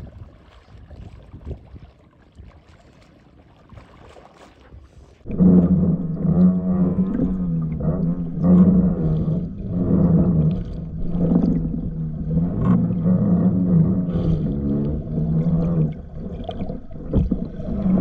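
Muffled underwater sound from a diver's camera: after a quiet stretch of faint wind and water, a loud steady droning hum with a slightly wavering pitch starts suddenly about five seconds in, with short knocks and rustles over it.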